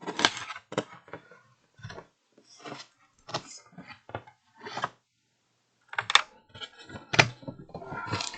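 A boxed plastic helmet and its packaging being handled: irregular clicks, taps and rustles, with sharper knocks just after the start, about six seconds in and about seven seconds in.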